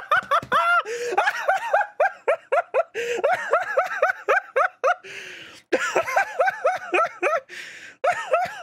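A man laughing hard and uncontrollably: long runs of quick, repeated "ha" sounds, several a second, broken by a couple of short pauses for breath.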